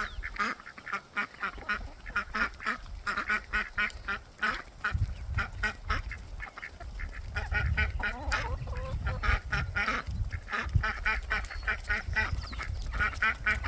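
Young ducks calling over and over in short, quick quacks, several birds overlapping. From about five seconds in, a low rumble runs underneath.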